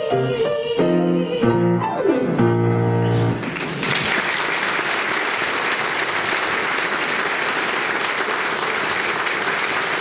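A song's instrumental accompaniment plays its closing chords, with a quick downward run, and stops about three and a half seconds in. An audience then applauds steadily.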